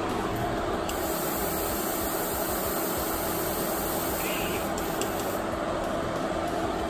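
Paasche Talon airbrush giving a steady high hiss of air from about a second in until past five seconds, over the constant running noise and low hum of the spray booth's exhaust fan.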